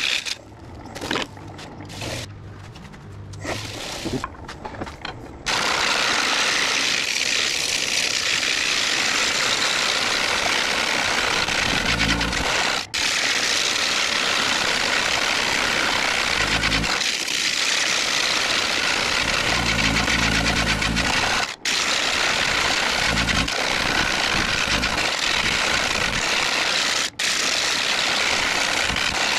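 A turning tool cutting into the inside of a large pine bowl spinning on a wood lathe, giving a steady rough hiss of wood being cut. It is quieter and broken for the first five seconds or so, then continuous, with three brief drop-outs.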